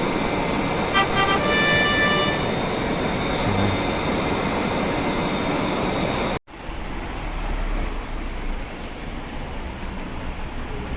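Steady running noise of a moving vehicle, in two shots cut together, with a short run of high tones about a second in. After the cut partway through, the noise is quieter with a deeper rumble.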